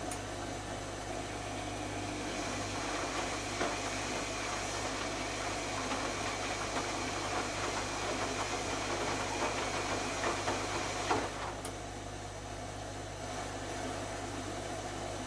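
Zanussi ZKN7120L washing machine running a cycle: a steady hum with a rougher, crackling noise over it that stops about eleven seconds in.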